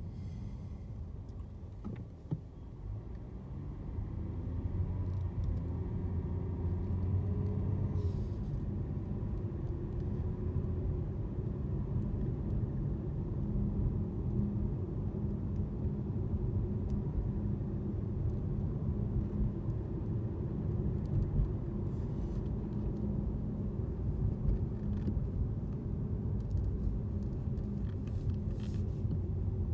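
Cabin noise of a 2017 Jaguar XJR on the move: steady low road and tyre rumble with a low hum, growing louder a few seconds in. This is the background humming the owner hears only while driving, never at a stop; it changes pitch with the road surface.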